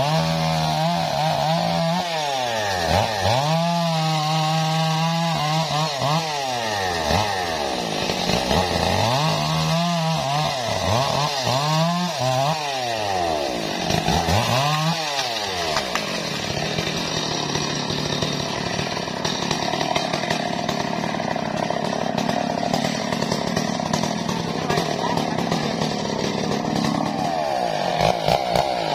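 STIHL MS 381 two-stroke chainsaw cutting wood. Its engine speed drops and climbs back several times in the first half, then it runs steadily at high revs through a long cut before dipping again near the end.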